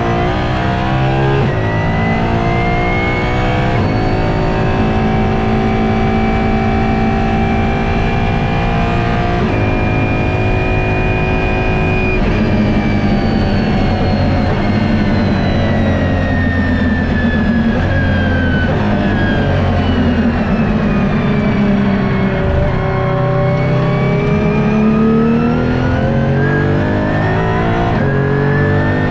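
Apollo IE's naturally aspirated V12 heard from inside the cabin at speed, its pitch climbing through the gears and holding high, then falling steadily for about ten seconds before rising again near the end.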